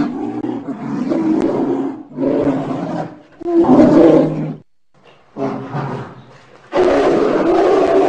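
Polar bear roaring: about five rough roars with short breaks between them. The loudest comes about four seconds in, a fainter one follows, and a long roar starts near the end.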